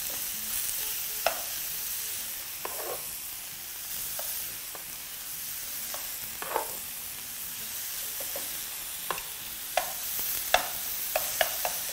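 Thin strips of raw lamb sizzling in hot oil in a nonstick frying pan, a steady hiss, with scattered clicks and taps as metal tongs spread the pieces around the pan.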